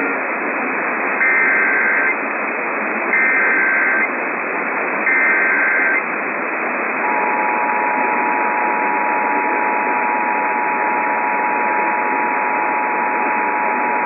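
Emergency Alert System test received on AM radio through heavy static: three short data bursts of the SAME header, each about a second long and about a second apart. About seven seconds in, the steady two-tone attention signal starts.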